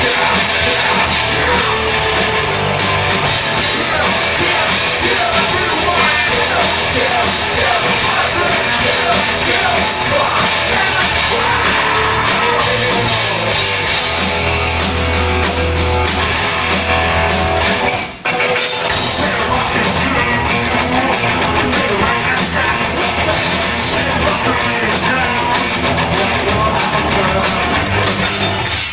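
Loud live rock band playing, heavy guitar-driven music with shouted singing, with a brief break about two-thirds of the way through.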